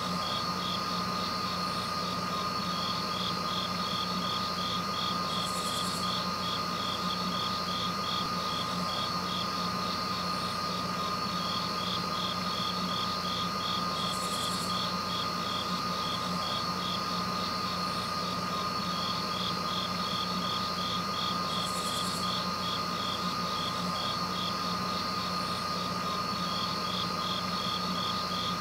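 Steady insect chorus: a fast pulsing trill over a constant high tone and a low hum, with a short, higher burst about every eight seconds.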